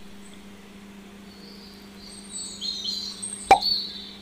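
Birds chirping in short high calls from about halfway through, over a faint steady hum, with one sharp click near the end.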